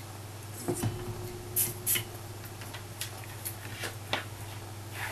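Scattered light clicks and rustles of hands picking up solder wire and a soldering iron to start soldering, over a steady low hum.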